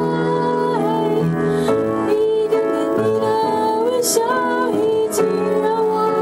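Piano being played while a woman sings over it, her voice holding notes and sliding between them.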